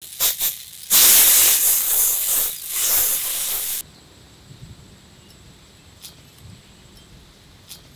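Loud sizzling hiss from a small hot iron dosa pan, first in two short spurts, then steadily for nearly three seconds before it cuts off abruptly. After that it is much quieter, with a couple of faint clicks of the small spatula on the pan.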